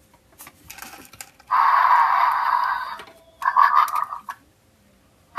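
Electronic DigiDino toy dinosaur's small speaker playing noisy roar sounds: a burst lasting about a second and a half, then a shorter one a couple of seconds later. A few light taps come just before.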